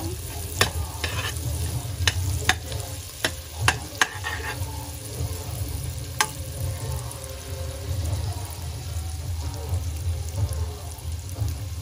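Sliced garlic frying in butter in a stainless steel pot, sizzling steadily, while a metal spoon stirs it with sharp clinks against the pot, most of them in the first half. A steady low hum runs underneath.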